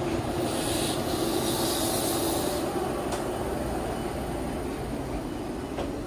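Enoden (Enoshima Electric Railway) electric train pulling out of the station past the platform: a steady rumble of wheels on rail with a hiss, getting slightly fainter as it moves off.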